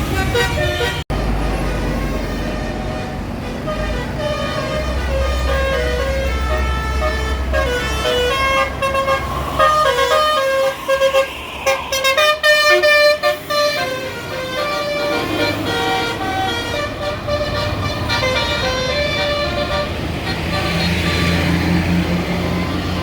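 A bus's multi-tone telolet (basuri) horn playing a tune of quick stepped notes over the low run of the bus engine. From about ten to fourteen seconds in the notes come as loud, choppy staccato blasts.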